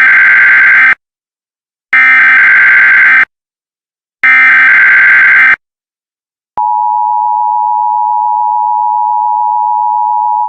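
Emergency Alert System tones: three loud bursts of the SAME digital header, each just over a second long with about a second between them. About a second after the last burst comes the steady EAS two-tone attention signal, lasting about four seconds.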